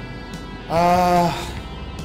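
Club music playing in the background, with a man's short, level, drawn-out "hmm" about a second in as he thinks over a question.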